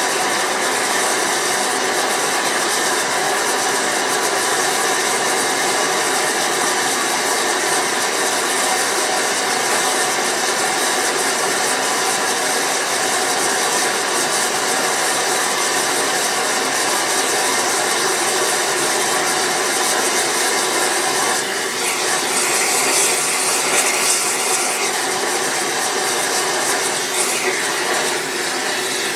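Gas-fired melting furnace burner running with a steady, loud rushing noise while melting sterling silver, with a brighter, slightly louder hiss for a few seconds about three-quarters of the way through.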